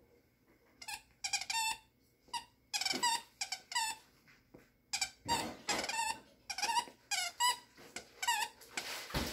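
Squeaker inside a Kong Cozie plush moose toy squeaking over and over as a poodle puppy chomps on it, about two short squeaks a second from about a second in, with a thump near the end.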